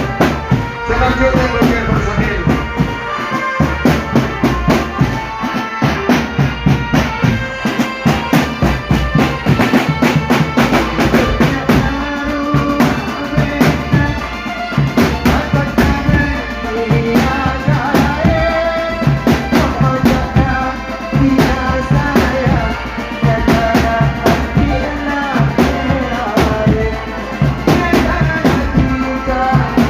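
A band playing music with a busy, steady drum beat under a melody line.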